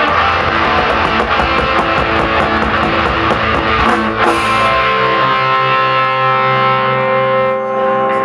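Live rock band playing with distorted electric guitars and drums. About five seconds in the drums drop out and the band holds a sustained, ringing chord.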